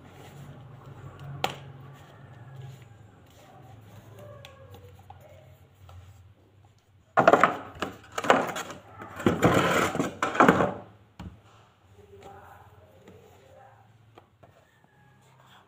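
Headphone packaging being handled: a single sharp click about a second and a half in, then several loud bursts of rustling and scraping for about three and a half seconds in the middle as the box is handled, then quieter handling.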